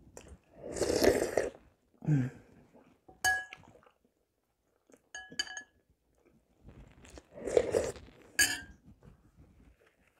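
A metal spoon clinks against a ceramic soup bowl a few times with short rings. Between the clinks come mouth sounds of eating soup as spoonfuls are taken.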